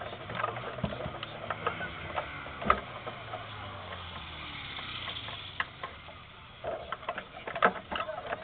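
Scattered sharp clicks and knocks around a stopped racing kart. Under them a faint engine runs low, its pitch sliding slowly in the first half.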